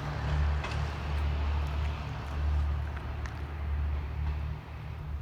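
Low, steady diesel rumble of the Tsugaru Railway stove train pulling away, with a few faint ticks, fading about four and a half seconds in as the train recedes.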